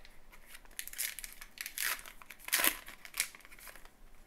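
A pack of trading cards being torn open, its wrapper crinkling and ripping in a run of irregular crackles, loudest about two and a half seconds in.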